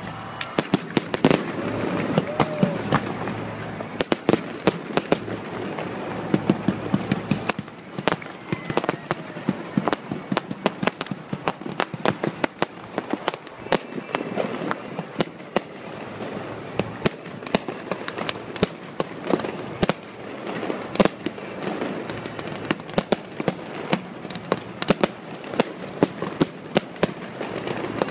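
Aerial fireworks going off in rapid succession: a dense string of sharp bangs and crackles, several a second, over a steady rushing noise.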